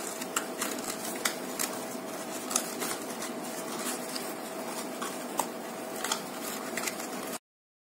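Faint crackles and small clicks of jackfruit leaves being handled and pinned into a cup with coconut-leaf midrib sticks, over a steady hiss. The sound cuts off abruptly near the end.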